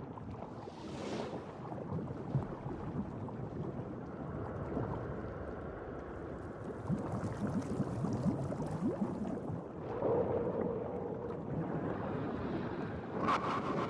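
Shallow seawater sloshing and lapping, with wind on the microphone.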